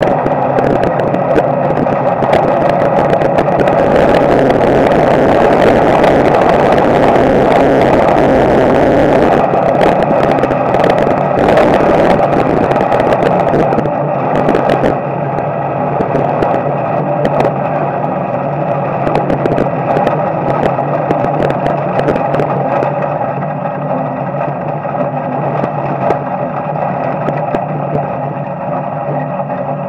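Street stock race car's small-block Chevy V8 running steadily at moderate speed, heard from inside the car, with frequent rattling clicks. It gets a little quieter about halfway through.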